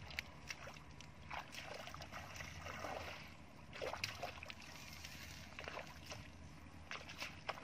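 Bare feet squelching and splashing through shallow muddy water, a string of irregular steps over a steady low rumble.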